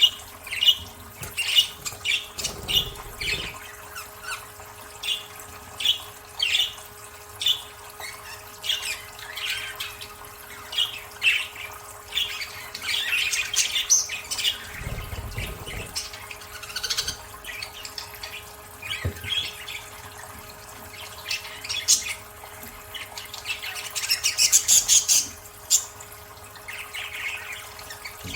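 Budgerigars chirping and squawking in many short, quick calls while bathing, with bursts of splashing water, the busiest around the middle and near the end. A faint steady hum runs underneath.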